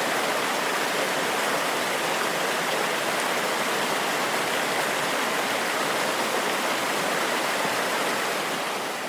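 Steady rush of flowing, falling water, with no other sound over it, fading out near the end.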